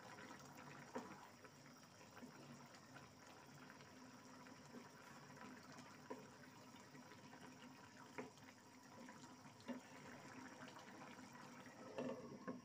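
Very faint: fish curry bubbling in a pan while a wooden spatula stirs it, with a few light knocks. A glass lid is set on the pan near the end.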